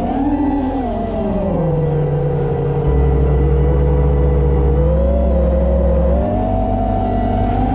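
FPV quadcopter's brushless T-Motor F60 Pro motors spinning three-blade Gemfan 5152 props: a whine that rises and falls in pitch with the throttle, climbing about half a second in and again after five seconds, over a low steady drone.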